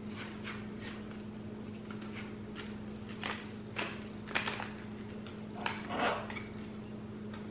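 Foil-lined plastic protein-bar wrapper crinkling in a few short rustles as it is picked up and handled, over a steady low hum.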